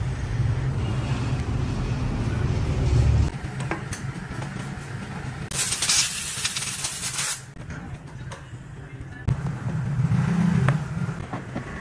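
Compressed-air blow gun hissing in one burst of about two seconds, blowing dust out of a scooter's pleated paper air filter element. It starts about five and a half seconds in and cuts off sharply. A low rumble comes before it, and a few light clicks of hand tools come after.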